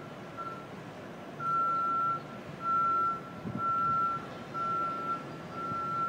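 Backup warning alarm on construction equipment beeping over and over: a single high tone, just under one beep a second, over a low city rumble. It is heard from a few hundred feet away.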